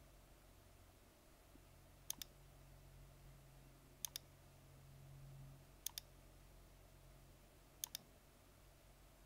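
Faint computer mouse clicks: four quick double clicks, about two seconds apart, over a low hum.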